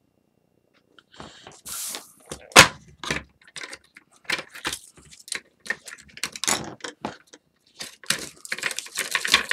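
A plastic refillable tape-runner adhesive dispenser being opened and its used-up reel cartridge handled: a quick string of plastic clicks, snaps and rattles, with one sharp snap about two and a half seconds in.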